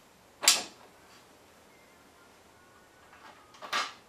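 Parts of a 1969 Rupp Roadster mini bike's rear shocks and swing arm knocking together as the shocks are fitted. There is one sharp knock about half a second in, a few light clicks, and a second knock near the end.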